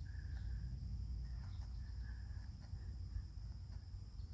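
Steady high-pitched chorus of insects over a constant low rumble.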